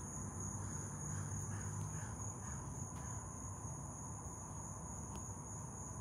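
Steady high-pitched trilling of crickets, with a faint low hum beneath it.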